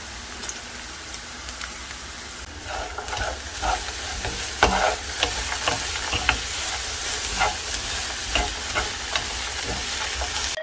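Stir-frying in a pan: a steady sizzle with the spatula scraping and clacking against the pan many times, as small dried anchovies are tossed for myeolchi-bokkeum.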